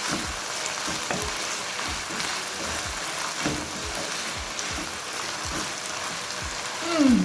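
Shredded beef with minced garlic and chili frying in a hot pan, a steady sizzle as it is stirred, with short strokes of the stirring utensil against the pan and a louder one near the end.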